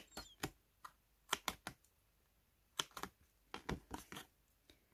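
Scissors snipping notches into the taped edge of a paper strip: a dozen or so short, crisp snips in small clusters.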